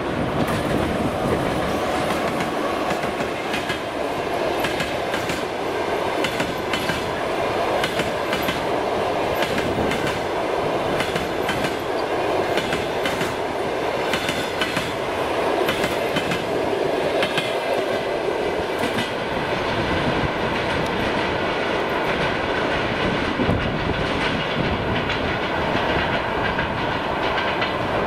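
EP2K electric locomotive and its passenger coaches rolling past, the wheels clicking over the rail joints in a steady stream of clatter.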